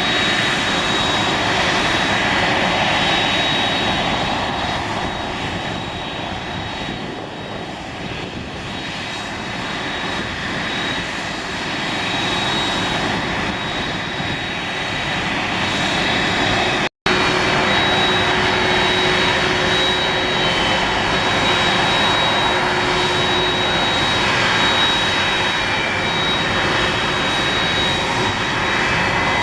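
Boeing 747-400ERF's four turbofan engines running at taxi power: a steady rush of jet noise with a thin high whine. The sound dips slightly about a third of the way in and cuts out for an instant a little past halfway.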